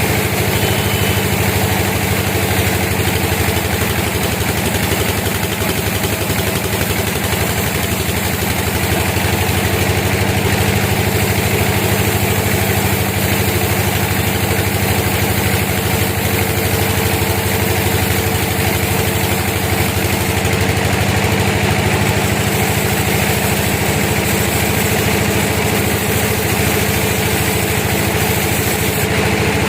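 Sawmill machinery running steadily, a continuous engine-like hum with no breaks, shifting slightly in tone about two-thirds of the way through.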